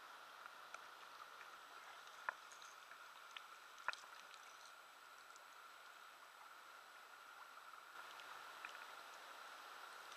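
Near silence with a steady faint hiss, under faint water sloshing and dripping as a pike is handled at the surface. Two sharp clicks stand out, about two and four seconds in.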